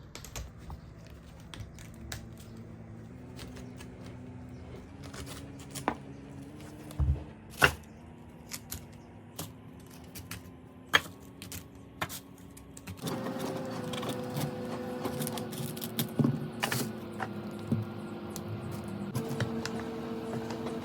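Irregular clicks, taps and knocks of kitchen items being handled while the fridge is organised. Soft background music with held notes plays underneath and gets louder about two-thirds of the way through.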